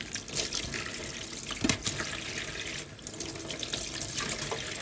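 Water running from a kitchen tap, its spout wrapped in a cloth filter, over cabbage being rinsed by hand in a steel sink: a steady pouring with irregular sharp splashes as the leaves are handled in the stream.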